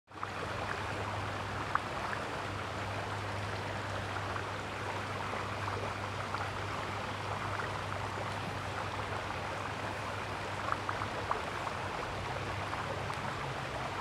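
Steady rushing noise over a low hum, with a few faint, short clicks scattered through: one near two seconds in and several more between about ten and eleven and a half seconds.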